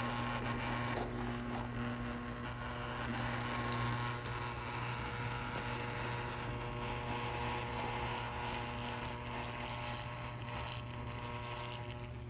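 Live mains-powered circuit board of a TV converter box lying in salt water, giving a steady low electrical hum with a sizzling hiss and a few small crackles as current passes through the water.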